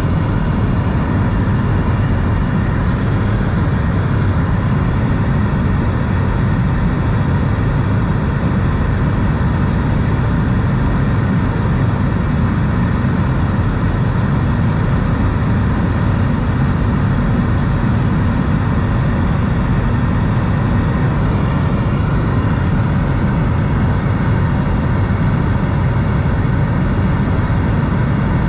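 Steady cabin noise inside an Airbus A220 in flight: the drone of its Pratt & Whitney PW1500G geared turbofan engines and rushing airflow, heaviest in the low range, with a faint steady hum above it.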